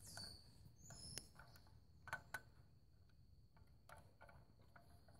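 Near silence, broken by a few faint clicks from handling a Ruger Mini-14 rifle and its magazine.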